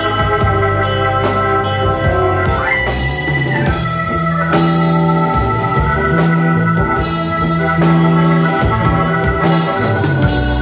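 Live blues-rock band playing an instrumental passage: a stage keyboard with an organ sound holds sustained chords over drum kit, bass guitar and electric guitar, with a short upward pitch bend about three seconds in.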